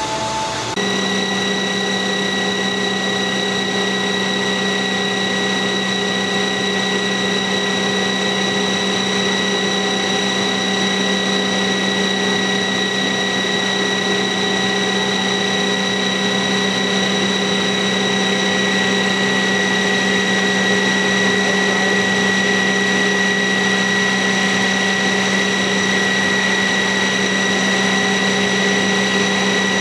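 Fecon forestry mulcher on a compact track loader, running its belt-driven rotor at steady speed: an even hum with a steady high whine, coming in abruptly about a second in. This is a balancing test run to measure rotor vibration after a correction weight was welded on.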